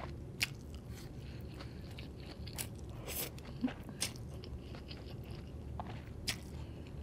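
Close-miked eating sounds: a person chewing and slurping stir-fried thin egg noodles, with several sharp wet clicks from the mouth and a short slurp about three seconds in.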